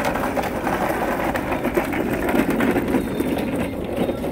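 Rattling rumble of a flatbed hand cart's hard wheels rolling over asphalt.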